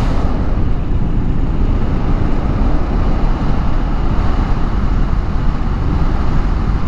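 2022 KTM 390 Adventure's single-cylinder engine running at riding speed, mixed with steady wind rush over the microphone.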